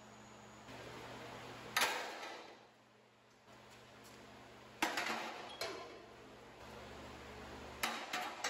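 Cut-off steel tubing and brackets tossed onto a scrap pile of metal: three clanking impacts about three seconds apart, each ringing briefly.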